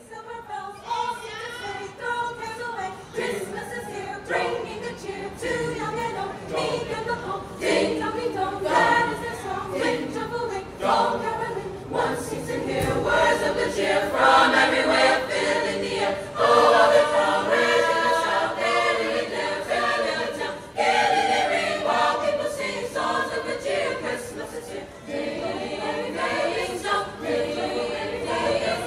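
School choir of mixed boys' and girls' voices singing a Christmas carol, growing louder toward the middle and easing slightly near the end.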